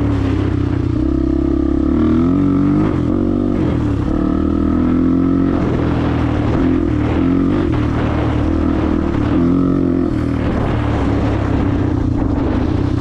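2004 Honda XR250R dirt bike's single-cylinder four-stroke engine running under way, its revs rising and falling repeatedly with the throttle.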